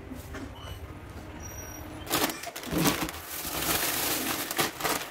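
Black plastic bag being handled, rustling and crinkling loudly, beginning about two seconds in after quieter room sounds.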